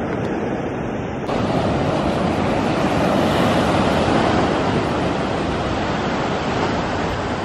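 Ocean surf breaking and washing up a sandy beach: a steady rush of waves that brightens slightly about a second in.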